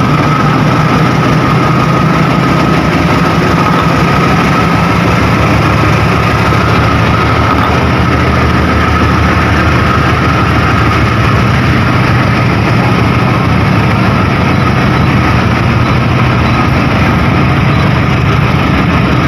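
Diesel locomotive hauling an empty cement freight train, its engine running steadily under a thin, steady high whine.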